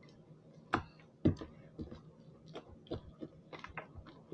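Wet, sticky homemade slime being squeezed and stretched by hand, making irregular short squelches and clicks.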